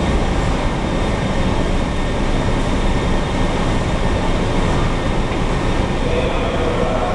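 Metrorail subway train standing at an underground platform: a steady, loud running noise from the train.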